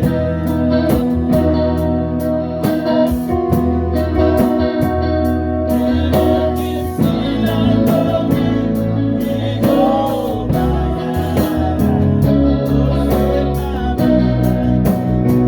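Gospel band playing amplified live music at a sound check: electric guitar, keyboard and bass over a steady drum beat, with some singing.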